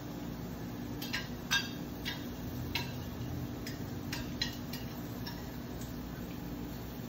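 Irregular light clicks and clinks of a metal cooking utensil on a flat-top griddle, about ten of them over the first five seconds or so, over a steady low kitchen hum.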